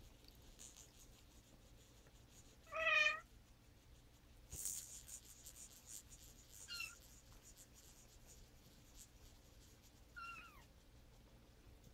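Cats meowing: one loud meow about three seconds in, then two short, higher mews around the middle and near the end. There is also a brief scratchy rustle just after the first meow.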